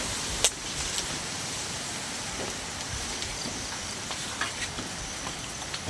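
Steady rain falling, an even hiss with scattered sharp ticks of drops hitting, the clearest about half a second in.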